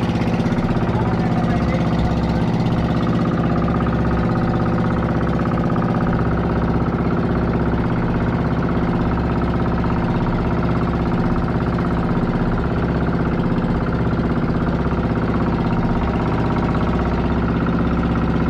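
Small fishing boat's engine running steadily at an even speed, with a low, rapid chugging.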